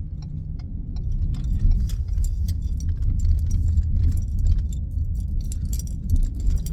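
Car road noise heard from inside the cabin while driving: a steady low rumble, with frequent light clinking rattles over it.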